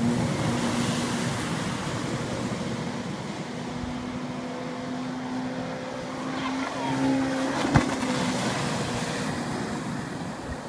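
Jet ski engine running at high revs, a steady whine that fades slowly as the craft pulls away, over a steady rushing hiss of spray and wind. A single sharp knock about three-quarters of the way through.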